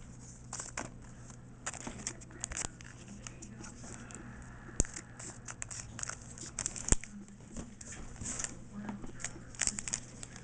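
Foil booster pack wrapper crinkling and being torn open by hand, with irregular short crackles and two sharp clicks about five and seven seconds in.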